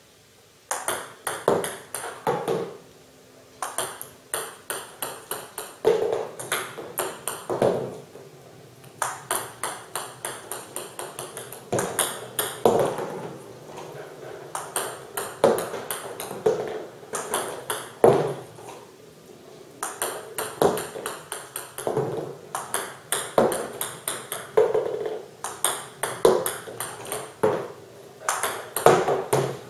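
Table tennis serving practice with 40 mm balls: sharp clicks of the paddle striking the ball and the ball bouncing on the table, repeated over and over. Between serves come short runs of quick ticks as the balls bounce and roll back.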